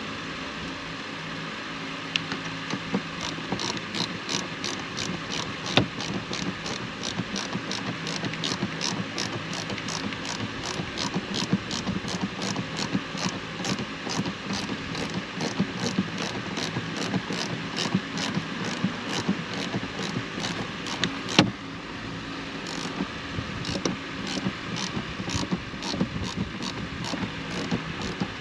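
Hand ratchet clicking in a steady rhythm, about three clicks a second, as it runs a long bolt into the shifter mounting bracket. There is a short break about three quarters of the way through, and a steady hum runs underneath.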